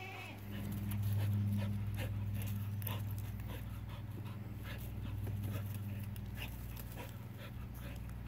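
Border collie panting during play, with a steady low hum under it that grows louder about half a second in.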